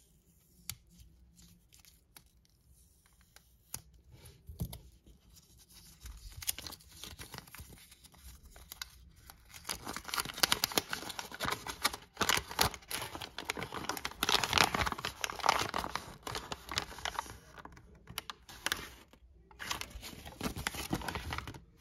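Lego minifigure blind-bag packet being torn open and crinkled in the hands, with its paper leaflet unfolded and rustling. A few faint clicks at first, then the crinkling grows louder from about ten seconds in.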